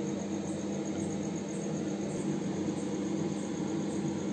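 Steady low hum with a fast, even, high-pitched insect chirping running over it.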